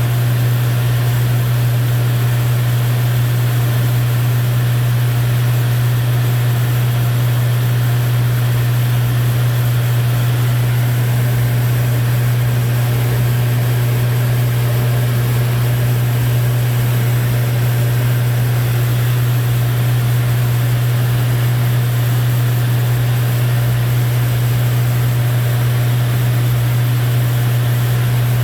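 Lancair IV-P's piston engine and propeller droning steadily in cruise, heard from inside the cabin. A strong, constant low hum sits under an even hiss of airflow.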